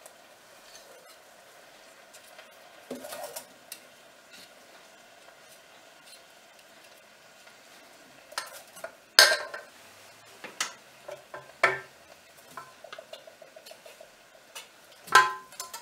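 Utensils knocking and scraping in a saucepan as a carrot and oatmeal mixture is stirred, first with a knife and then with a wooden spoon. Scattered light scrapes, a sharp knock on the pan about nine seconds in, a run of small quick taps, and another loud knock near the end.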